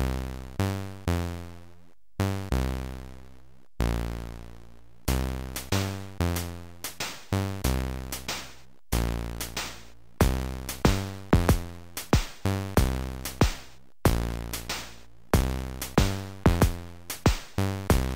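Synthesized electronic music from a 4 KB Amiga intro, made by the intro's own code: a drum-machine beat with sharp-attack bass and synth notes that die away after each hit, the hits coming faster from about ten seconds in.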